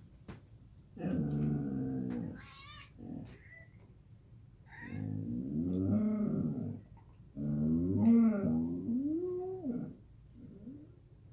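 Samoyed babbling: three long vocal calls whose pitch wavers up and down, then a short, quieter one near the end.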